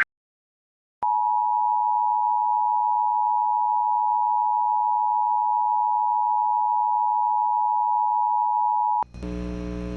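Emergency Alert System attention signal: two steady tones near 853 and 960 Hz sounding together for about eight seconds, starting after a second of silence and cutting off sharply. It announces that a new alert is about to be read. After it comes a low broadcast hum.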